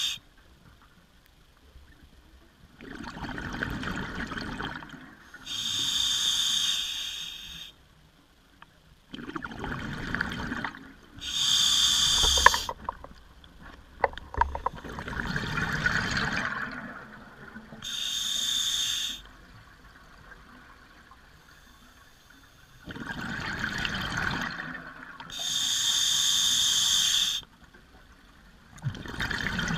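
Scuba diver breathing through a regulator underwater: about four breath cycles, each a hissing inhalation followed by a burble of exhaled bubbles.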